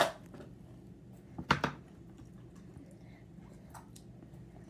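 Handling noises: a sharp knock at the start, then a couple of sharp knocks about a second and a half in, over a faint steady hum.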